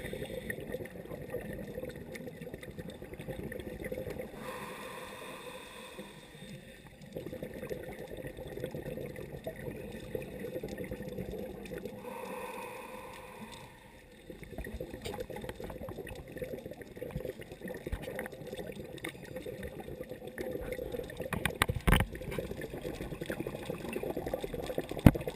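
Scuba breathing heard underwater: long stretches of rushing, gurgling exhaled bubbles broken twice, about four and twelve seconds in, by the hiss of an inhale through the regulator. A couple of sharp knocks come near the end.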